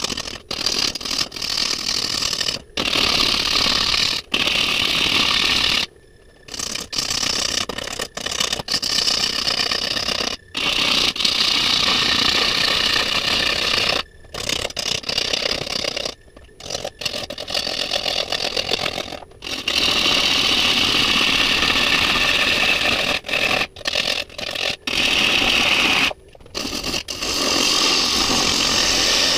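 A turning tool cutting into a spinning silver maple bowl blank on a wood lathe, roughing out the bottom of the bowl: a loud, steady cutting noise in long passes, broken every few seconds by short pauses.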